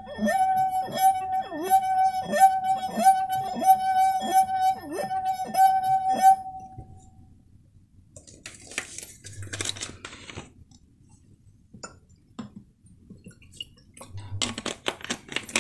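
A wet finger rubbed around the rim of a stemmed brandy glass partly filled with water makes it sing: one steady ringing note with a faint swish each time the finger goes round, about every half second, dying away after some six seconds. Near the end, water is poured into the glass from a bottle.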